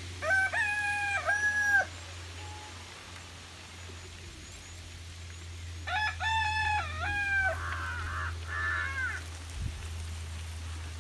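A rooster crowing twice, each crow lasting about a second and a half, the second about six seconds after the first, over a steady low hum.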